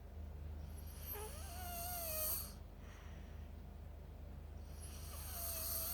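A small child snoring in sleep: two snoring breaths about three and a half seconds apart, each lasting about a second and a half and carrying a thin whistling note.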